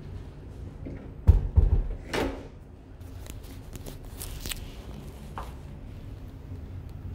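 A few heavy, dull thumps about a second in, followed by a short rustling scrape, then a few faint clicks.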